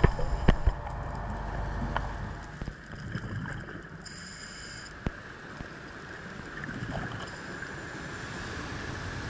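Underwater ambience: a low boat-engine rumble with a faint hum fades out after about two and a half seconds, leaving a steady hiss broken by a few sharp clicks.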